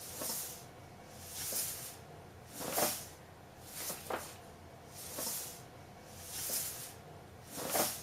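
Cat snoring or breathing noisily: raspy, hissing breaths coming regularly about every second and a quarter.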